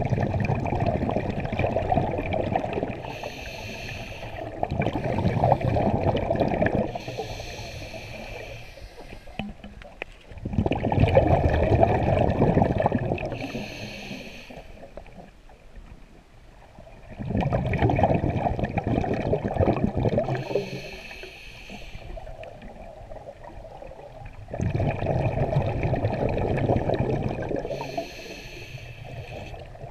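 Scuba diver breathing through a regulator underwater: four long rushes of exhaled bubbles, roughly seven seconds apart, with quieter stretches in between.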